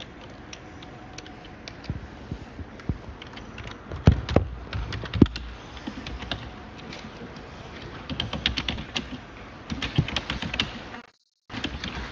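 Typing on a computer keyboard: irregular runs of key clicks, quickening in the second half, with two louder knocks at about four and five seconds in. The audio cuts out completely for a moment near the end.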